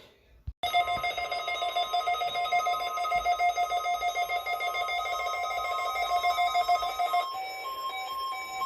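NOAA weather radio receivers going off for the weekly alarm test: the warning alarm tone sounds together with the radios' own electronic alert tones as a steady, slightly fluttering chord of several pitches. About seven seconds in it turns into pulsing beeps, roughly two a second.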